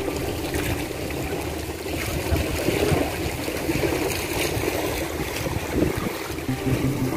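Sea washing against the concrete blocks of a breakwater, with wind blowing across the microphone, steady throughout.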